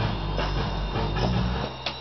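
Music with a low bass line that stops about one and a half seconds in, followed by a single sharp click.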